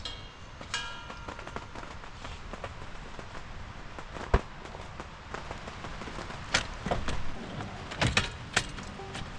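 Steady rain with a few knocks and thumps of camp gear being handled and packed, the sharpest about four seconds in, and a short ringing sound just under a second in.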